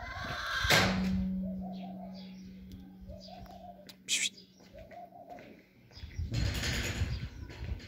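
Pigeons cooing, short soft coos repeating every second or so. A loud rush of noise about a second in leaves a steady low hum for several seconds, a brief high chirp sounds partway through, and another loud rush of noise comes near the end.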